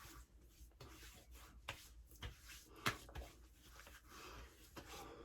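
Faint, scattered clicks and taps from an aftershave bottle being handled, with a sharper click about three seconds in.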